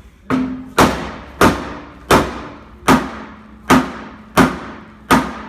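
Hammer blows on the Jeep's steel body, about eight strikes roughly two-thirds of a second apart, each ringing briefly. The body is being knocked over with its mounting bolts loosened, to close a body panel gap.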